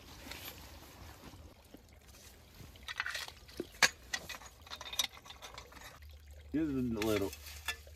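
Scattered knocks and scraping of rocks and dirt as a campfire pit is dug out and ringed with stones. The sharpest knock comes about four seconds in, and a brief voice follows near the end.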